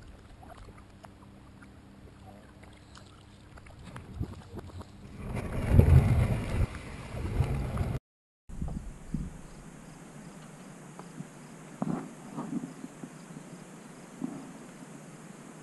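Knocks and scraping of a plastic kayak being handled on a rocky shore, growing into a louder rumbling scrape about six seconds in. After a short break, faint steady outdoor ambience with insects chirping.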